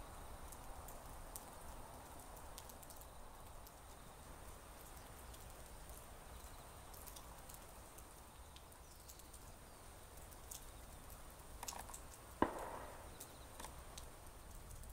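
Light rain: scattered raindrops tap irregularly near the microphone over a faint low rumble, with one louder tap late on.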